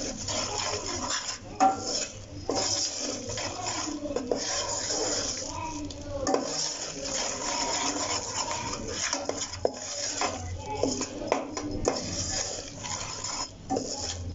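A metal spoon stirring and scraping wheat flour around a steel pot as the flour roasts in ghee, with frequent clinks of the spoon against the pot. The flour is being browned dark and kept moving so it does not stick and burn on the bottom.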